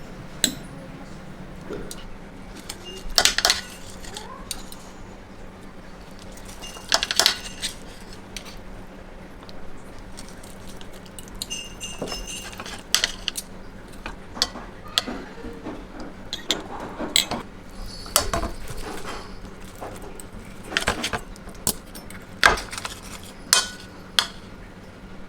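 Plates and cutlery clinking and knocking against each other, a couple of dozen scattered strikes over a steady low hum.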